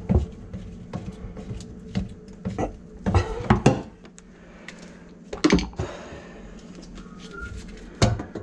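Scattered knocks, clicks and clatters of hands handling drain fittings and tools in a sink cabinet, over a steady low hum. The sharpest knocks come about three seconds in, again about five and a half seconds in, and the loudest near the end.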